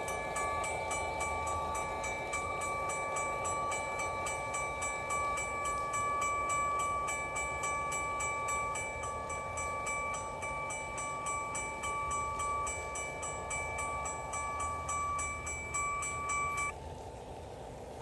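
Railroad-crossing bell sound played from a DFPlayer MP3 module through a small 8-ohm speaker on a model gate crossing, dinging rapidly and evenly at several strokes a second while the crossing is active. It cuts off suddenly near the end as the crossing lights stop flashing.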